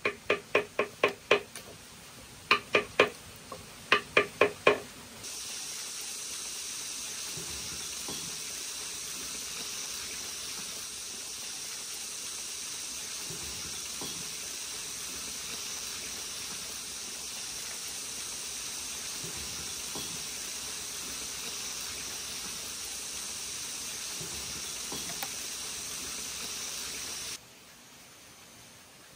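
Three quick runs of sharp, ringing knocks, then a steady sizzling hiss as a red-hot iron rod is pressed into a block of wood to burn a hole through it. The hiss cuts off suddenly near the end.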